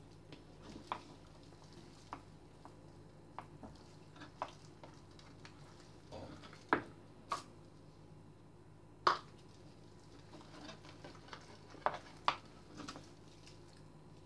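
Hands rubbing and pressing spice mix into the skin of a raw whole duck on a wooden cutting board. Soft squishing and scattered light taps run through it, with a few sharper knocks, the loudest about nine seconds in. A faint steady hum sits underneath.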